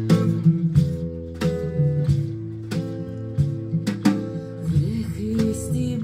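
Live music led by an acoustic guitar, strummed in a steady rhythm of chords.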